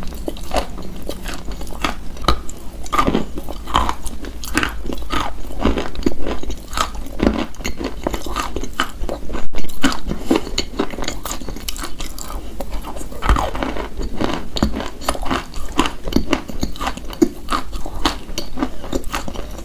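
Close-miked biting and chewing of brittle, chalk-like pieces: a dense, irregular run of crunches. There is a brief break about halfway through, followed by the loudest crunches.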